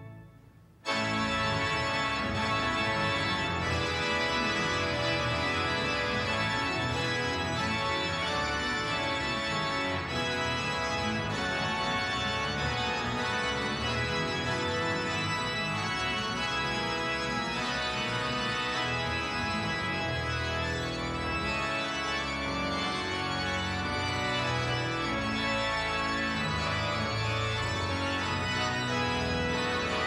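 Large church pipe organ playing full, sustained chords, with bass notes from the pedals. It starts suddenly about a second in, just after the previous music fades out.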